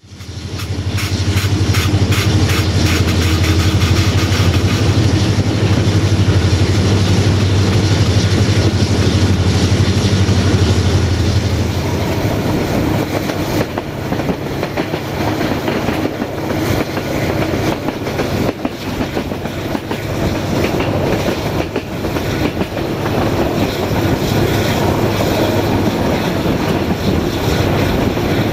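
EMD 8-710G3 eight-cylinder two-stroke diesel of an EGM621 locomotive working at full throttle, a deep steady drone, with the wheels clicking over the rails, heard from a coach window. About twelve seconds in the engine drone falls away, leaving mostly the rolling noise of wheels on track and rushing air.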